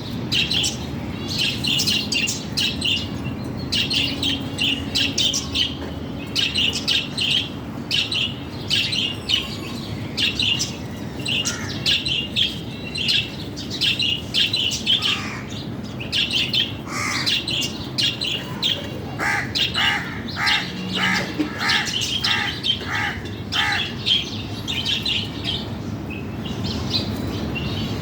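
A flock of birds chirping busily in quick, high calls. Past the middle a crow caws about eight times in a steady run.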